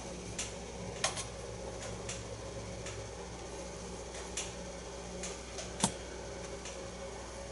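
Faint, scattered light clicks and ticks, about seven over several seconds with a sharper one about six seconds in, from hands unwinding and handling rod-wrapping thread. A steady low hum runs underneath.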